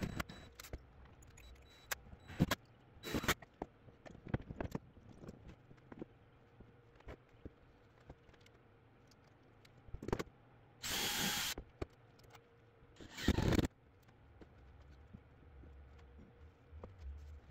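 Cordless drill running in two brief bursts, about two-thirds of the way through, driving screws into a 2x4 frame. Scattered knocks and clatter of boards and tools being handled come before and between the bursts.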